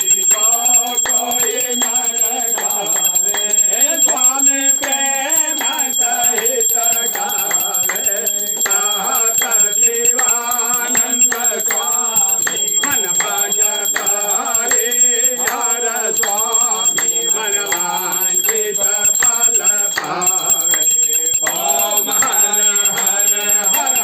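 A group singing a Hindu aarti to Shiva, with rhythmic hand clapping and a metal bell ringing steadily beneath the voices.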